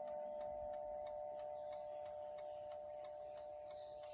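Odo French spring-driven mantel clock movement ticking steadily under the lingering, slowly fading ring of its chime gong rods, a chord of several held tones.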